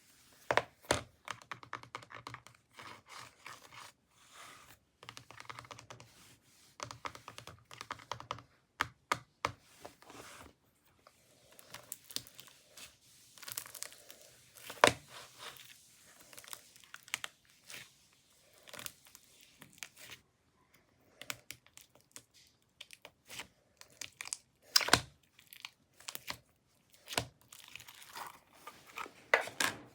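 Slime being squeezed, stretched and poked by hand close to the microphone, giving irregular sticky clicks, pops and crackles with brief pauses between handfuls.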